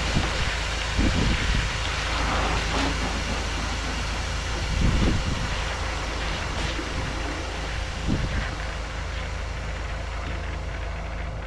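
Pressure washing: a steady hiss of spray with engine-driven equipment running underneath, broken by a few short low thumps about one, five and eight seconds in.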